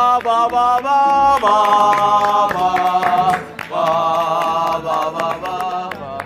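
A reedy, pipe-like tune of held and sliding notes, made by a person blowing through the nose, with a short break partway through.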